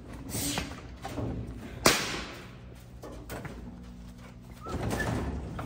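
A snack vending machine's hinged front door swings open with a single sharp crack about two seconds in, followed by softer shuffling near the end.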